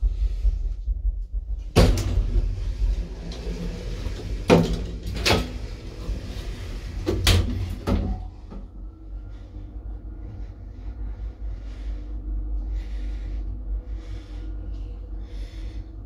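Doors of a 1960s Del Bo traction elevator banging and latching, about five clunks over six seconds. Then a steady hum as the car moves off and travels.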